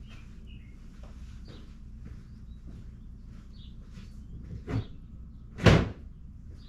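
Two knocks, a light one and then a much louder one a second later near the end, with faint bird chirps in the background.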